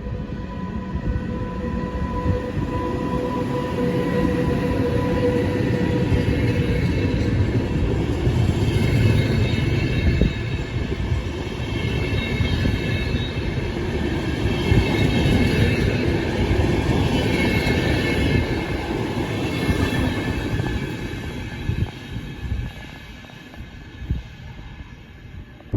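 A train passing through the station: the rumble of wheels and cars builds up and holds, with high steady ringing tones in the middle, then fades away near the end. A steady hum tone sounds for the first few seconds.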